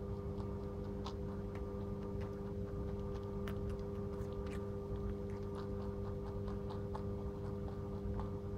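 Pet rabbit chewing on a fresh carrot: small, irregular crunching clicks. Under them runs a steady low hum.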